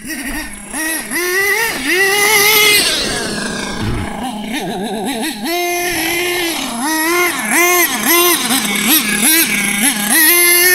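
OFNA LX1 RC buggy's high-pitched motor revving up and dropping back over and over in quick throttle blips, with a couple of longer held runs at full pitch.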